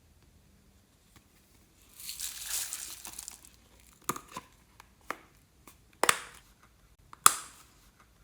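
A crinkling, tearing rustle about two seconds in, then four short sharp snaps about a second apart.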